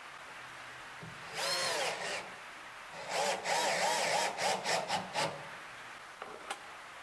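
Cordless drill-driver driving screws: a short run of the motor about a second and a half in, then a longer run of about two seconds starting three seconds in, its whine wavering in pitch as the screw goes in. Two light clicks near the end.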